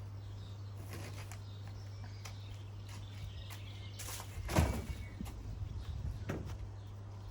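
Footsteps and handling knocks, with one louder knock a little past halfway and a smaller one later, over a steady low hum; a bird chirps faintly.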